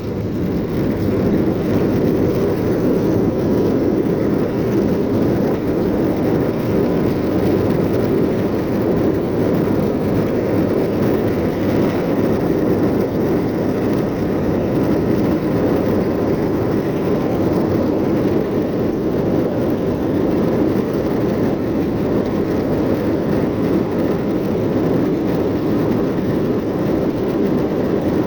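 Airbus A321-231's IAE V2500 turbofan engines at takeoff thrust, heard from inside the passenger cabin as a loud, steady, deep noise. The noise builds over the first second and then holds level.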